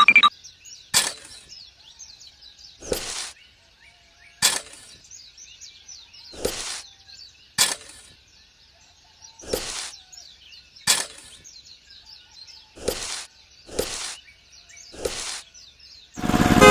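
A string of short sharp clicks alternating with brief scraping or rustling noises, each a second or two apart, with birds chirping faintly in the background.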